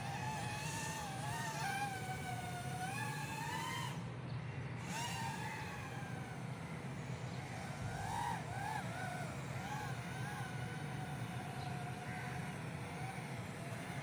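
A 3-inch FPV micro racer quadcopter's motors and propellers whining, the pitch rising and falling with throttle changes and dropping out briefly about four seconds in, over a steady low hum.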